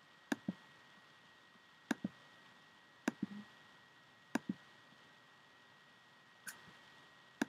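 Computer mouse clicking about six times, one to two seconds apart. Each click is a quick double tick of button press and release, with the fifth one softer. Underneath is a faint steady hiss.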